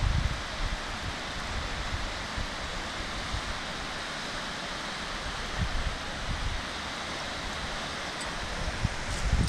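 Steady rushing of a waterfall, with low wind buffeting on the microphone now and then.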